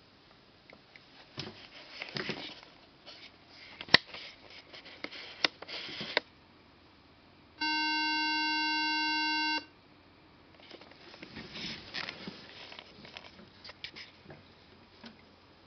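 Rustling and clicking of hands handling an aluminium unibody MacBook, with a sharp click about four seconds in. Past the middle, the MacBook's speaker sounds a steady multi-note electronic tone for about two seconds that holds flat and cuts off abruptly. This is part of a startup behaviour the owner finds strange, though the RAM and hard drive tested fine.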